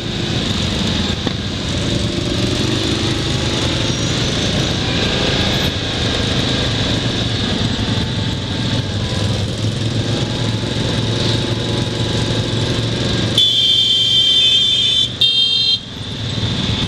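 Quad bike engine running under way, with wind noise on the microphone. Near the end a horn sounds twice: a long toot of about a second and a half, then a short one.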